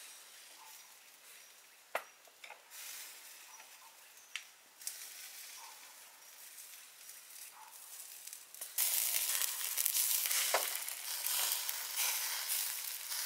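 Pig jaw sizzling on a wire grill rack over charcoal as it is brushed with sauce, with a couple of sharp clicks early on. The sizzling turns much louder about nine seconds in.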